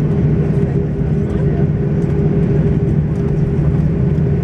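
Steady cabin noise of an Airbus A340-600 taxiing: a low rumble with a constant hum from its Rolls-Royce Trent 500 engines at idle.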